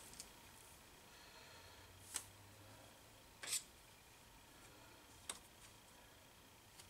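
Near silence broken by three faint clicks, a second or two apart, the middle one slightly longer: the metal cover of a lathe carriage way wiper being set back in place by hand.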